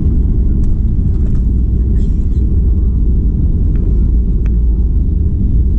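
Steady low rumble of cabin noise inside a Boeing 737-800, heard from a window seat, with a few faint light clicks.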